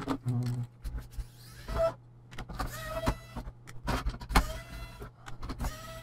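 A small electric screwdriver whirring in several short bursts as screws are driven out of a laptop-size hard drive's mounting, among clicks and knocks of the drive and its metal chassis being handled.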